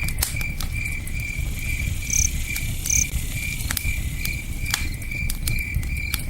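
Crickets chirping in an even rhythm, about two or three chirps a second, over a crackling campfire with scattered sharp pops and the low rush of a river.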